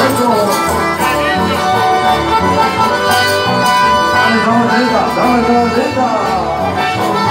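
A live band playing, led by accordions, with guitar and a steady beat.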